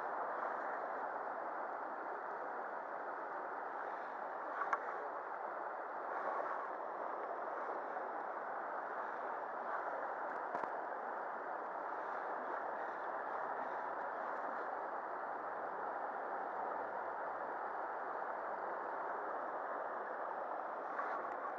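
Shallow river water running steadily over stones in a riffle, with a few faint small clicks.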